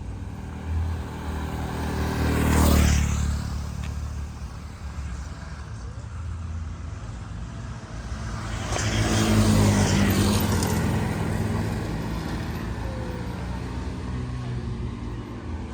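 Road traffic: two motor vehicles pass close by, one about three seconds in and one about nine to ten seconds in, over a steady low engine rumble.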